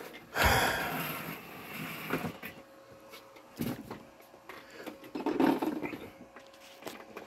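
Handheld camera being fumbled with, irregular rubbing and bumping against the microphone, loudest about half a second in, over a faint steady hum.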